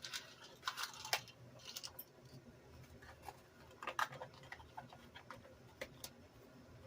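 Faint, irregular clicks and light taps, bunched in the first second or so and again about four seconds in, with a couple more near the end.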